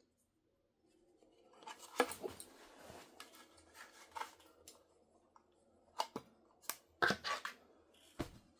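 Handling of a Noctua NV-FS1 plastic pivoting fan mount and its fan: rattling and scraping with sharp plastic clicks, the loudest about two seconds in and several more between six and eight seconds in, as the fan is taken out of the mount.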